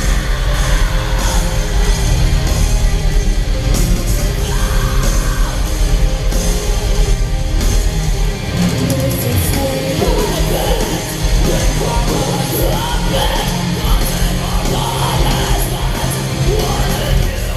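Melodic death metal band playing live in a large hall: loud distorted guitars and heavy drums, with vocals over them.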